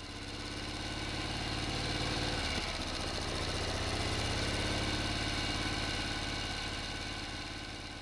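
Water taxi's boat engine running steadily as the pontoon boat motors across the river, with a hiss of water over it; the sound swells up, holds, and fades away near the end.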